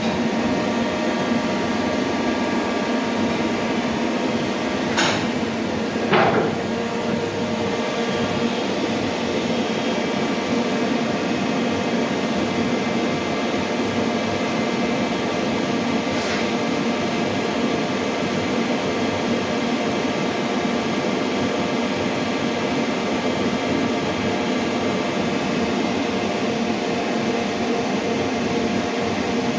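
Hyundai HIT 8 S CNC lathe running: a steady mechanical hum made of several held tones, with two sharp knocks about five and six seconds in and a faint click about halfway through.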